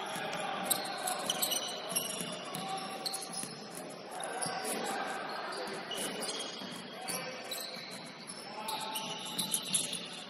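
Basketball game on a hardwood gym floor: the ball dribbling and players' sneakers squeaking as they run, with sharp thuds about a second in and again near the end, and players' voices calling out.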